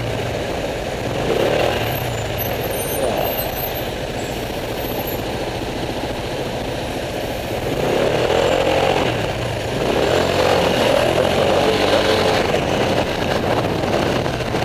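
Road traffic in a slow queue: a steady engine hum with other vehicles running close by, getting louder about eight seconds in.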